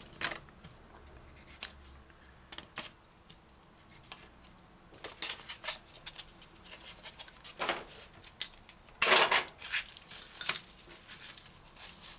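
Scattered light clicks, taps and rustles of food-prep handling on a countertop: a tray of trimmed tomatoes being moved and dry garlic and onion skins being gathered by hand, with a louder scraping rustle about nine seconds in.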